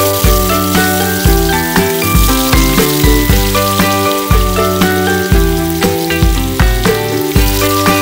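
Background music with a steady bass beat and melody, over the sizzle of tofu cubes frying in hot oil.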